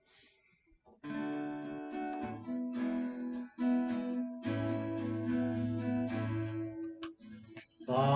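Acoustic guitar strumming chords as the introduction to a song, starting about a second in after a brief quiet.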